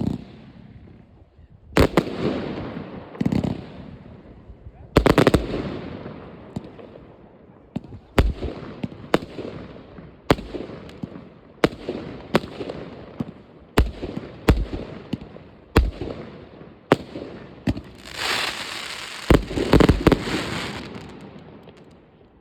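New Year's Eve fireworks going off: a string of sharp bangs, each with an echoing tail, coming about once a second, then a dense run of rapid bangs near the end.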